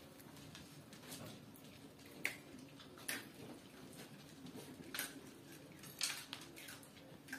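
Small dog eating dry kibble from a bowl: faint, scattered clicks of kibble and teeth against the bowl, about five of them, roughly a second apart.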